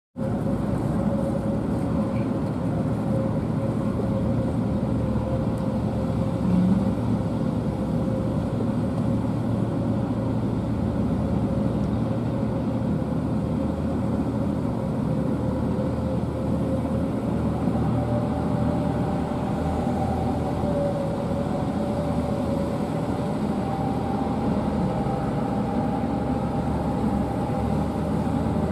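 Heavy dump trucks' engines running at low speed, an old Toyota dump truck among them, with a steady whine throughout and a second, higher whine joining about two-thirds of the way through.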